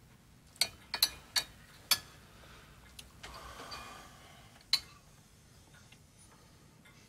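Spoons clinking against soup bowls and plates at the table: a handful of short, sharp clicks at irregular intervals, with a faint rustle near the middle.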